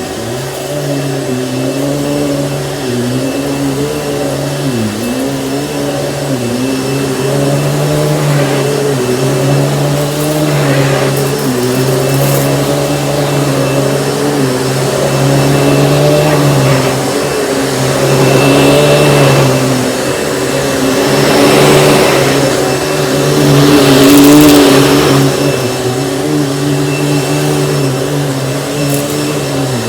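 Panasonic upright vacuum cleaner running at full power, its motor tone dipping briefly a couple of times. Swells of louder rushing air come about two-thirds of the way through, the loudest near the end.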